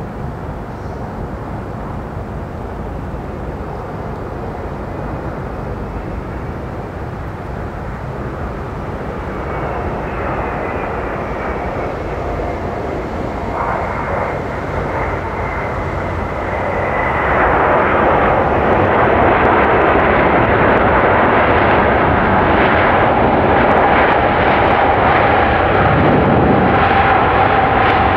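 Airbus A380's jet engines on landing. The rumble builds as it approaches, with a faint falling whine, then swells at about two-thirds of the way through into a loud, steady roar with a held tone as the jet rolls out on the runway.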